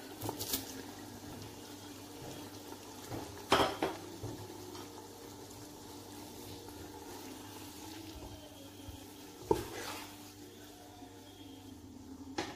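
Kitchen utensils knocking against a cooking pot, four sharp clinks, the loudest about three and a half and nine and a half seconds in, as fish is scraped off a plate into the pot. A steady low hum runs underneath.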